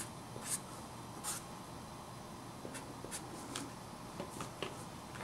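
Felt-tip marker writing on paper: several short strokes in the first second and a half, then fainter scattered ticks.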